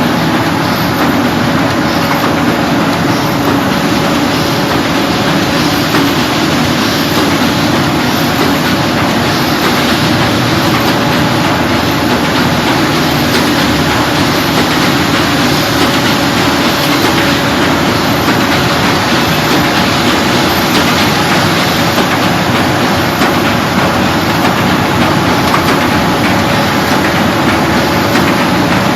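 Sheet-fed paper bag making machine running in production, a steady dense mechanical noise with a faint, regular high tick repeating through it.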